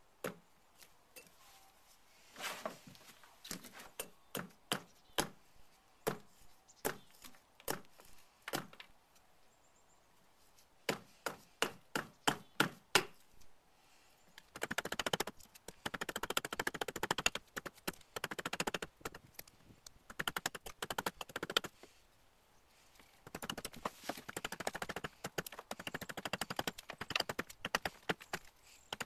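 Carving hatchet chopping a green trembling-aspen spoon blank against a stump block. At first come single sharp wooden knocks about a second apart, which quicken near the middle. Then come two long runs of rapid, light strokes close together.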